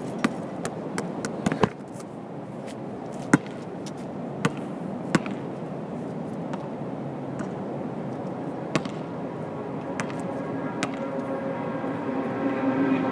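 A basketball bouncing on the hard court surface and hitting the rim: scattered sharp thuds a second or so apart over a steady outdoor hiss. Near the end a steady drone with several held tones swells up.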